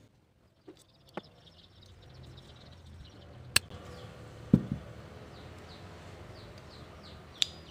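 S.T. Dupont lighter being refilled with butane: a faint hiss for about three seconds, then metal clicks and a knock as the lighter is handled. Near the end comes a sharp click with a brief ring, like the lid snapping open. Small birds chirp repeatedly in the background.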